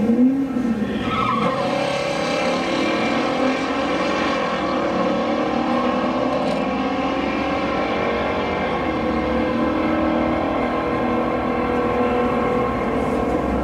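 Two V8 muscle cars, a Ford Mustang GT and a Chevrolet Camaro, idling on the drag strip's starting line while they creep forward to stage. There is a quick throttle blip right at the start, then a steady, lumpy idle.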